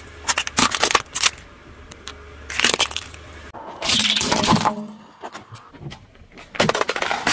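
Car tyre rolling over and crushing small plastic objects: about four separate bouts of cracking and crunching, the longest about four seconds in.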